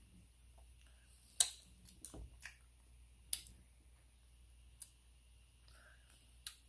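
Close-up eating and sipping mouth sounds: about five sharp, isolated clicks and lip smacks, spaced a second or more apart, with quiet in between.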